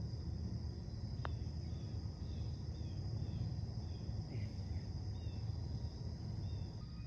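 A TaylorMade Spider Tour putter strikes a golf ball once, a short sharp click about a second in. Under it runs a steady low rumble, with faint high chirps repeating through the rest.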